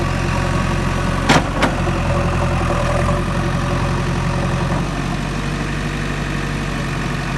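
JCB 3DX backhoe loader's diesel engine running steadily, with two sharp metallic knocks close together just over a second in.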